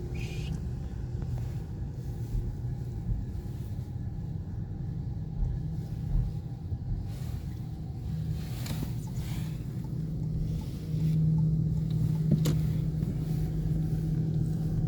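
Steady low engine rumble with a hum that gets louder about eleven seconds in, and a sharp click shortly after.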